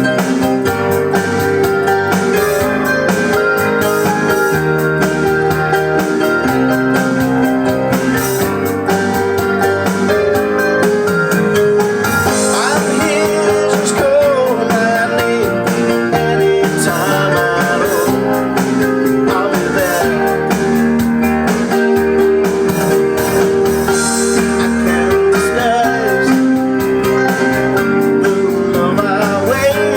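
A sequenced MIDI backing track played on a Roland E-500 keyboard, with drums, bass and guitar voices, and piano chords played along with it.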